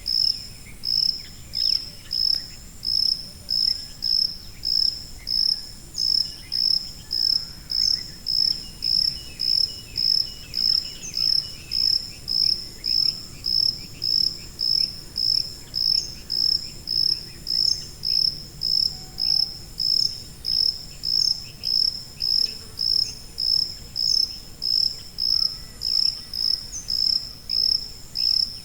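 Cricket chirping in a steady, even rhythm, a little under two high-pitched chirps a second.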